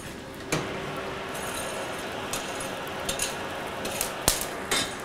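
Metal clinks of blacksmith's tongs and a steel workpiece knocking against the irons of a coke forge as the piece is worked in the fire: one sharp clink about half a second in, then several lighter ones, over a steady background noise.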